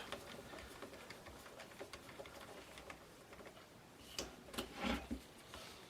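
Faint, irregular light clicks and taps of a T30 wrench and hands working the pistol grip screw on an upturned AR-15, with a few louder knocks about four to five seconds in.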